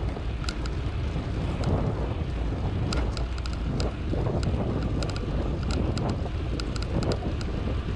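Wind buffeting the microphone while riding a bicycle: a steady low rumble with many light, irregular clicks throughout.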